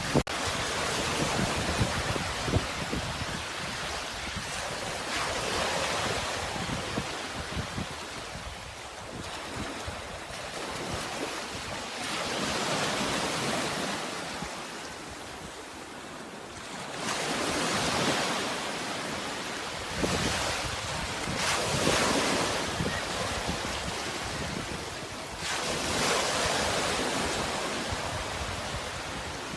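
Sea waves breaking and washing in, the surf swelling and ebbing in surges every four to six seconds.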